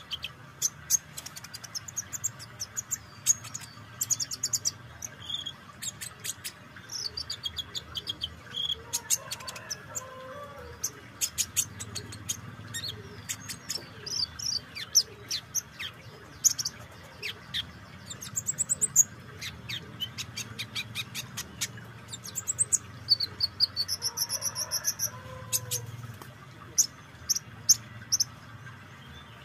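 Van Hasselt's sunbird (kolibri ninja) singing: a fast run of sharp, high-pitched chips and short trills, repeated again and again with brief pauses.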